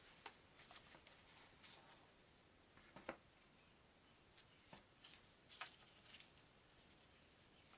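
Faint, scattered rustles and soft taps of a stack of paper play money being handled.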